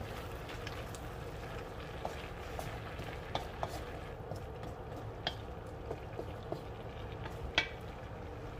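Wooden spatula stirring vegetables in a large metal wok, with scattered light knocks and scrapes on the pan over a steady low frying sizzle; one sharper knock near the end.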